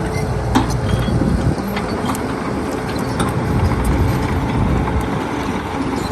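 Heavy vehicle engine running steadily with a low rumble, with scattered clicks and knocks.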